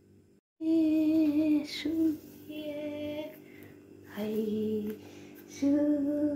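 A female voice singing long, steady held notes, four phrases in a row, with faint music behind; it cuts in abruptly about half a second in.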